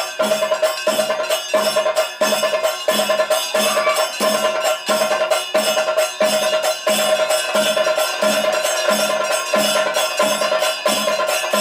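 Thirayattam ritual percussion playing a steady beat of about two strokes a second over a steady ringing tone.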